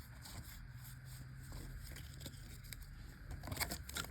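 Quiet handling of trading cards and a foil booster-pack wrapper: faint scattered rustles, then crinkling clicks starting near the end as the next pack is handled.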